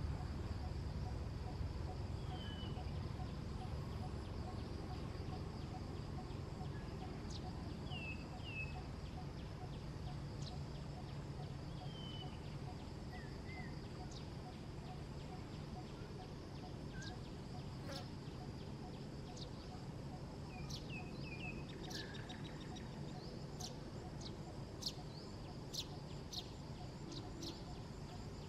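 Outdoor ambience: a steady low background noise and a faint, steady high drone. Short, high, falling chirps come every few seconds, and a run of sharp ticks and clicks starts about two-thirds of the way in.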